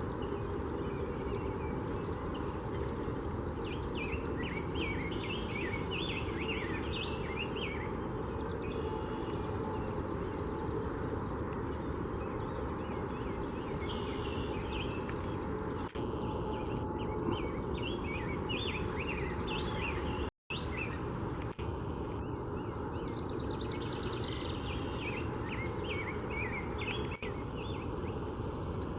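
Several small songbirds singing and chirping in quick trills over a steady low background rumble.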